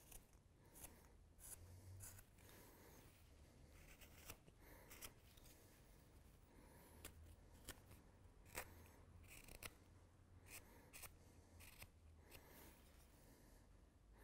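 Carving knife slicing thin shavings off the bowl of a wooden spoon: a series of short, faint cuts at an irregular pace.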